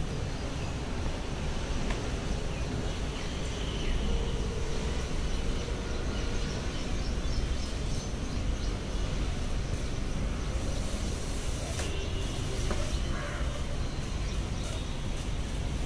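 Steady low rumbling background noise, with faint cloth rustling and a few light taps as a cotton flag is handled and tied onto a steel rod.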